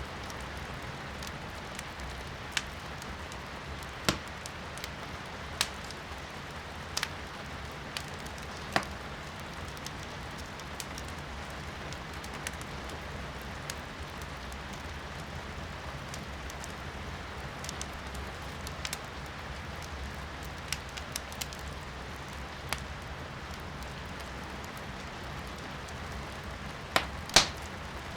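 Wood fire crackling in a fireplace, with scattered sharp pops every second or two and a loud pair near the end, over a steady hiss of rain heard from inside a room.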